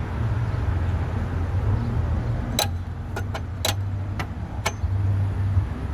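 Six sharp metallic clicks over about two seconds, starting a little over halfway in, as a finger works the metal coin-return flap of a street pay phone. A steady low traffic rumble runs underneath.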